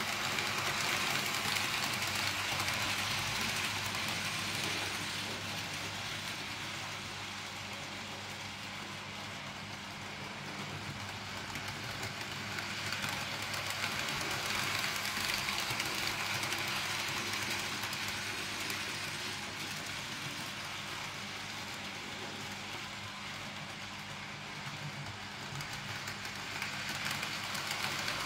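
N gauge model trains running round the track: an even whirring of small electric motors and wheels on the rails, swelling louder three times as trains come round close by.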